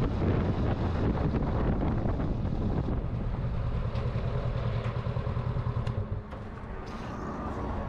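2022 Honda CB500X's parallel-twin engine running while the bike is ridden, with wind noise on the microphone. The engine sound drops in level about six seconds in.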